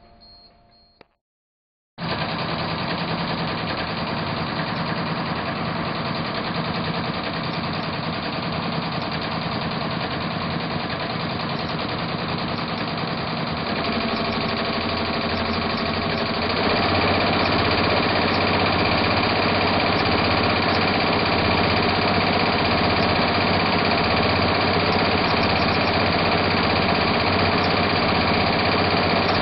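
Multi-needle commercial embroidery machine stitching, a steady rapid needle clatter that starts about two seconds in. About halfway through it gets louder in two steps as the machine is sped up to about 1,000 stitches per minute.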